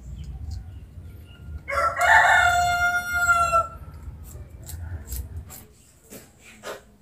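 A rooster crows once, one long call of about two seconds starting a little under two seconds in.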